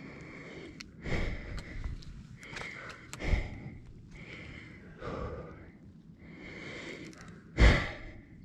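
A person breathing hard and out of breath, with a heavy breath every second or so and a sharp, loud breath near the end.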